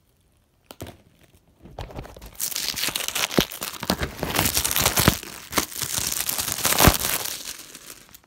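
Packaging crinkling and tearing as it is handled, a dense crackle full of sharp clicks that starts about two seconds in and dies away near the end.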